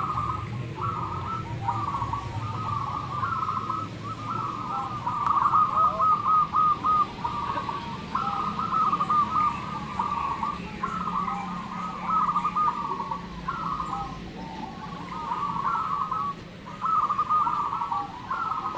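Many zebra doves (perkutut) cooing together, their quick rolling phrases of short notes overlapping almost without a break.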